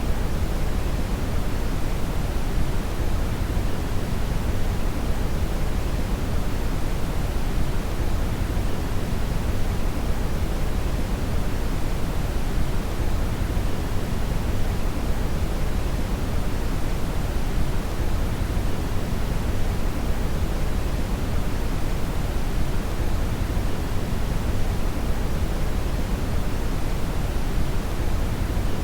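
Generated brown (red) noise: a steady, even hiss with most of its weight in the bass, unchanging throughout.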